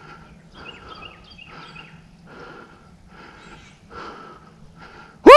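Footsteps rustling through brush, about three steps every two seconds. Near the end, one very loud, short call that rises and then falls in pitch cuts across them.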